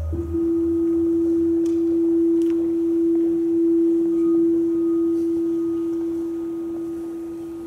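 A steady, sustained pure tone from the performance's sound score, starting as a higher tone breaks off and held for the whole time. A fainter, higher tone joins it about four seconds in, and a low hum dies away within the first second.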